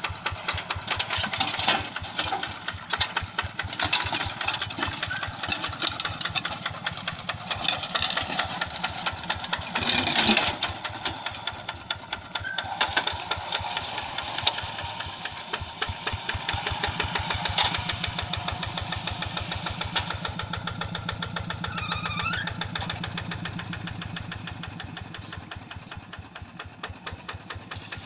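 Quick G1000 two-wheel hand tractor's single-cylinder diesel engine running with a fast, steady chugging that eases off somewhat toward the end.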